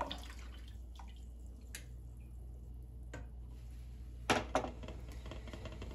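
A spatula stirring coconut milk in a stainless steel pot, with quiet liquid sounds and a few faint taps, then two sharp clicks a little after four seconds in as the spatula is set down on a ceramic spoon rest.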